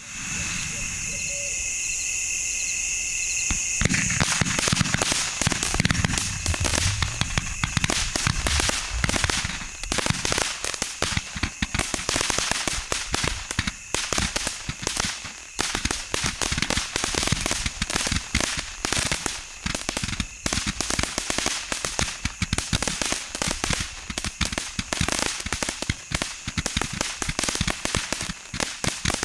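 A 280-shot 'Machine Gun' firework hisses steadily for about four seconds, then fires a rapid, continuous string of shots, its red and green stars bursting in cracking breaks.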